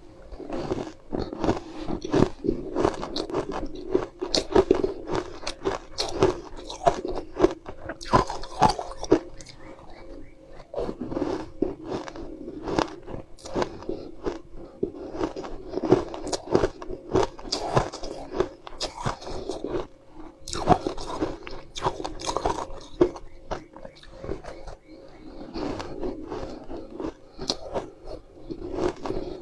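Close-miked biting and chewing of a soft cake slice: a continuous run of small sharp crunching clicks from the mouth, a bite starting it off.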